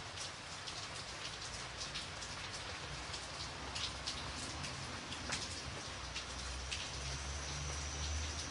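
Steady rain falling, with close drops striking a surface as sharp ticks through the hiss. A low rumble swells in during the last second or two.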